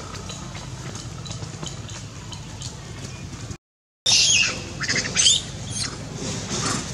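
Long-tailed macaque giving a run of loud, high, shrill calls that start suddenly about four seconds in, after a brief break in the sound. Before them there is only a low, steady hum.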